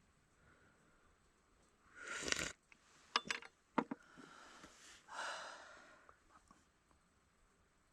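Two breathy puffs of air from a person, one about two seconds in and another about five seconds in, with a few sharp light clicks between them while eating.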